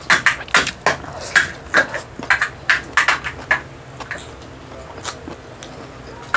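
Close-miked chewing and lip-smacking while eating grilled food, with short wet clicks about three a second that thin out to a few scattered ones about halfway through.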